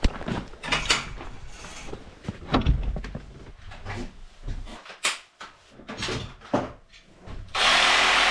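Tools being handled and pulled off shelves in a small wooden shed: a string of knocks, clunks and rattles. Near the end comes a loud burst of noise lasting under a second.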